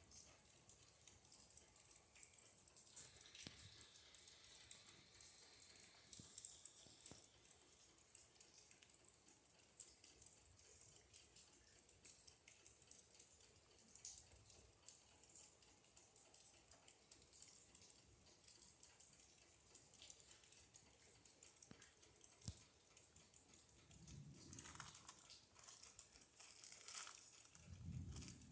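Faint steady patter of rain with scattered small drips, and two short low rumbles near the end.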